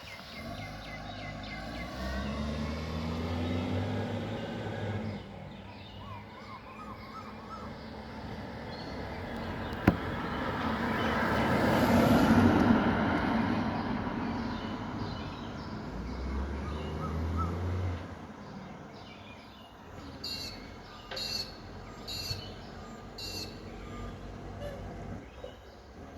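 Diesel garbage truck engine running and driving past, its sound building to a peak about twelve seconds in and then fading. A sharp click comes shortly before the peak, and short repeated bird chirps follow near the end.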